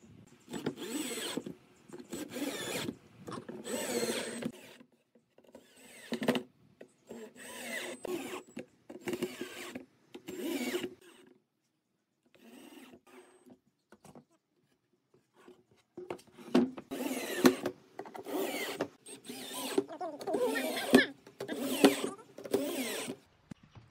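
Cordless drill/driver running in a series of short bursts, about a dozen, driving wood screws into pine boards, with a quieter pause about halfway through. Near the end it runs a drill bit into the wood.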